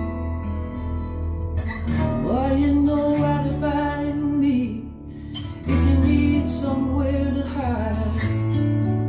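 A song played back over a pair of Emotiva B1+ bookshelf speakers: acoustic guitar with a long, held melodic line that bends in pitch, over a steady bass.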